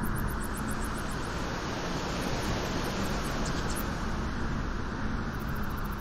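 Wind blowing steadily on a beach: an even, deep rushing noise with no gusts or breaks.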